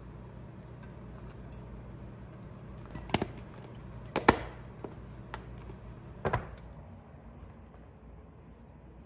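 Three sharp knocks of kitchenware during cooking, the loudest in the middle, over a steady low hum.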